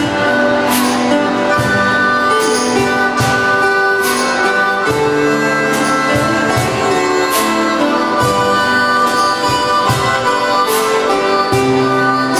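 Several acoustic guitars strumming in a steady rhythm while a harmonica plays the melody in long held notes; no singing.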